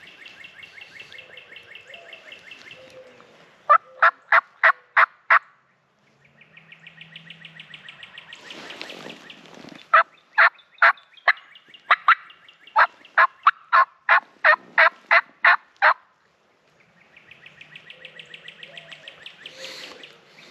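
A hunter's turkey call making hen yelps: a loud run of about six yelps a few seconds in, then a longer run of about fourteen yelps. Softer, drawn-out rattling notes come before, between and after the yelps.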